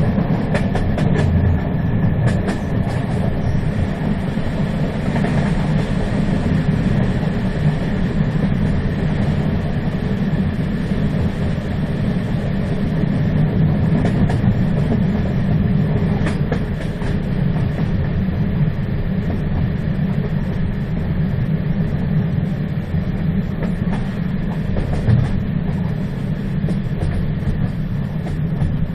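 Moving train running steadily: a continuous low rumble with a few faint clicks and knocks from the rails.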